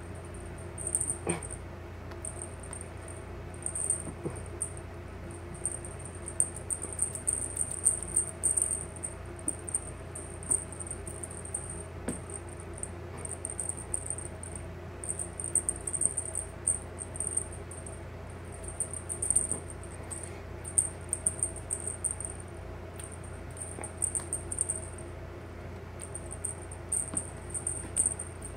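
Feather wand cat toy jingling in short, irregular, high-pitched bursts as it is waved and batted, with a few light taps, over a steady low hum.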